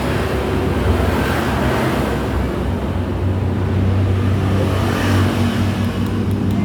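A steady low mechanical hum with a haze of noise, with a few light clicks near the end.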